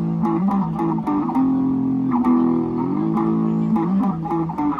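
A street guitar mounted on a bicycle, played through an amplifier. It plays a melody of plucked notes over sustained low notes that slide from one pitch to the next.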